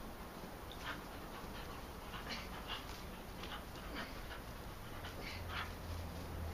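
A dog breathing hard in short, irregular huffs while playing tug with a toy.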